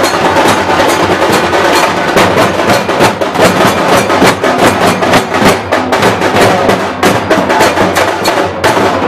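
Loud, fast drumming for a palkhi procession dance: a dense, steady run of sharp drum strikes, several a second.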